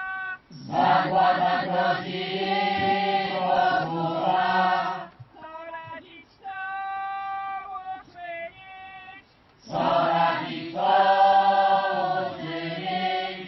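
Call-and-response chanted singing: a single voice sings a line alone, and a group of voices answers in unison, twice over.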